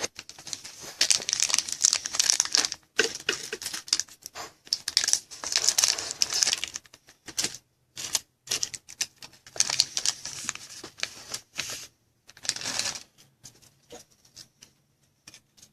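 Foil wrapper of a pack of trading cards crinkling and tearing as the pack is opened, in irregular bursts of rustling with short pauses between.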